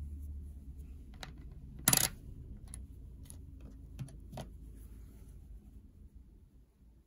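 A 2-euro coin being handled and set down on a hard surface. It gives one louder knock about two seconds in and several lighter clicks either side, over a low hum that fades away.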